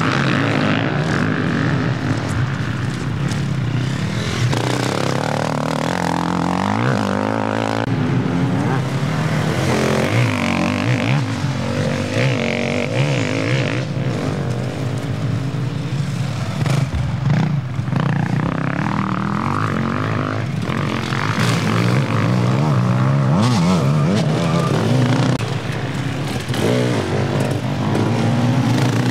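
Engines of several off-road racing vehicles running and revving at once, their pitches rising and falling over one another.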